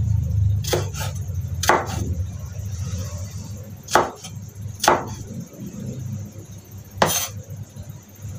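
Cleaver dicing a tomato on a wooden cutting board: about seven sharp knocks of the blade against the board at uneven intervals, over a low steady hum.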